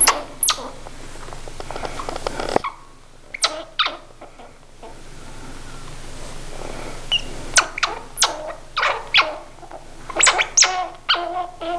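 Baby squirrel fussing: sharp, high squeaks, a few at first, then more and more often until they run together into a quick string of calls near the end, with soft rubbing as a towel dries its wet fur.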